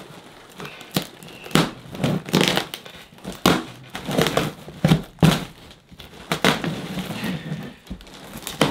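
An airsoft rifle magazine scraping and slitting through packing tape on a large cardboard box, with irregular rips, scrapes and crinkles of tape and cardboard about once a second.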